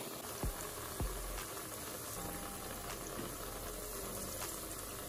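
Battered cauliflower florets deep-frying in hot oil: a steady sizzle and bubbling of the oil, with a couple of light clicks about half a second and a second in.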